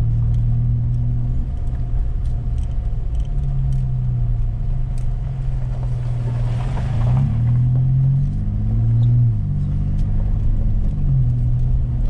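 A 2019 GMC Canyon pickup's engine running as the truck drives, its pitch shifting up and down in the middle as road speed changes, with a short rush of noise about six to seven seconds in and scattered light clicks.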